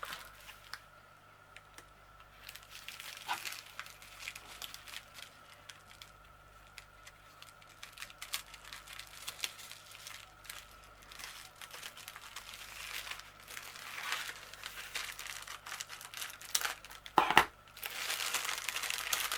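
Padded mailing envelope being opened by hand: crinkling and tearing of the envelope and its wrapping, sparse and faint at first and busier in the second half, with one louder rustle near the end.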